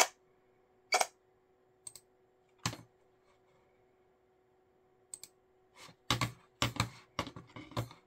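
Computer mouse clicking and clattering on a desk: about a dozen short, irregular clicks, coming faster in the last few seconds, over a faint steady hum.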